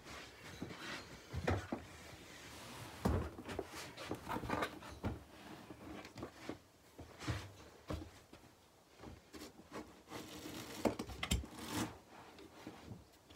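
Household handling noise: a quilt rustling as it is moved and spread out, with scattered knocks and thumps of things being shifted about.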